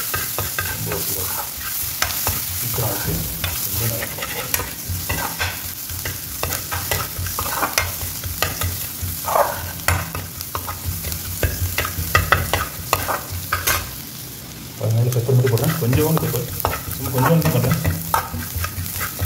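Chopped onions sizzling in hot oil in a frying pan while a metal spoon stirs them, scraping and clicking against the pan over and over.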